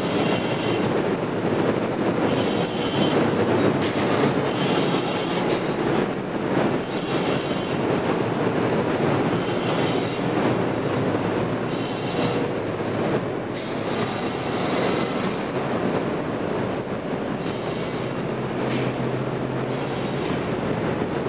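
Steady, loud machinery noise of plant pumps running in a wastewater treatment plant's pump basement, with brief hissing rises every second or two.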